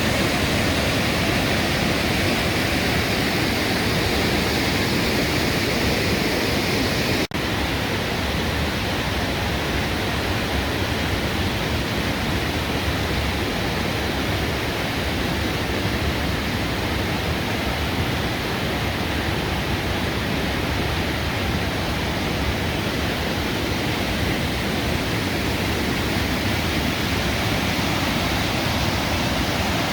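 Blakiston Falls waterfall pouring: a steady, loud rush of water noise. It cuts out for an instant about seven seconds in, then carries on slightly less bright.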